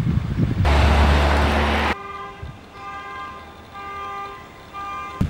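A car alarm sounding through the horn: a pitched horn beeping in repeated pulses about once a second. Before it, about a second in, comes a short, loud rush of noise with a deep rumble.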